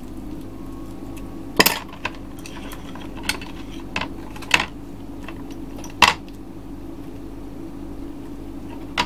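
Kitchen utensils and dishes clinking and knocking: about half a dozen separate sharp clinks, the loudest about a second and a half in and about six seconds in.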